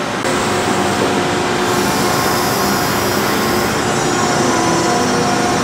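Steady industrial machinery noise: an even hiss and hum with a few faint steady tones, stepping up in level about a quarter second in.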